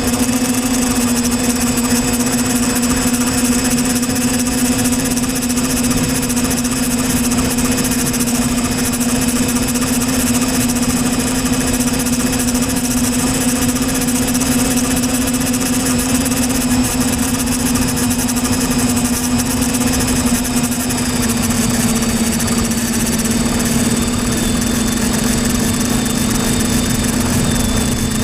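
Quadcopter drone's motors and propellers running, a steady droning hum as heard from the drone's own onboard camera.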